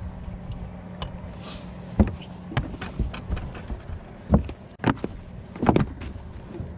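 Footsteps and knocks on a Nitro Z19 bass boat's deck: several sharp thumps spread through the middle few seconds, over a steady low hum.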